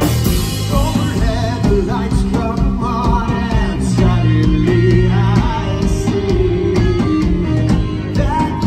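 Live rock band playing: a man singing lead over electric guitars and a drum kit.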